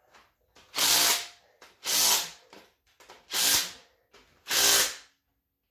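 Cordless impact wrench running down bolts on an LS V8 engine in four short bursts, each about half a second long, with brief pauses between them as it moves from bolt to bolt.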